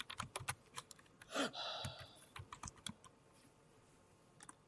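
Faint run of light, quick clicks over the first three seconds, with two more near the end.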